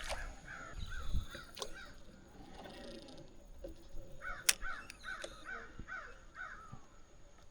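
A bird calling in two runs of short, repeated arched calls, one at the start and another from about four seconds in, with a few sharp clicks between.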